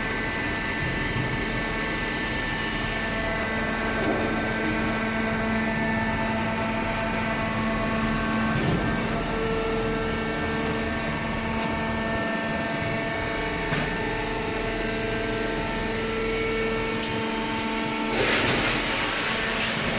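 Vertical hydraulic baler running: a steady machine hum with several held whining tones from the pump motor, and a brief rush of hiss near the end.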